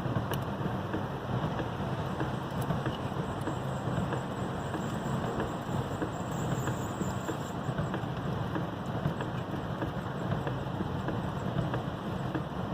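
Strong storm wind rushing and buffeting the microphone in a steady, even noise.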